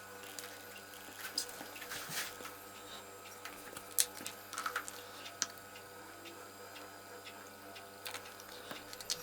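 Quiet handling sounds: scattered light clicks and taps, the sharpest about four seconds in, over a faint steady hum.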